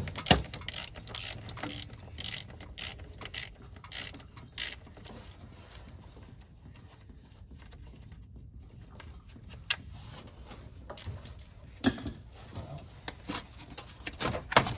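Hand ratchet clicking in an even run, a little over two clicks a second, as it backs out an 8 mm bolt holding the radiator fan shroud; the clicking stops about five seconds in. About twelve seconds in comes a sharp knock, then scattered light clicks and clatter as the plastic fan shroud is handled.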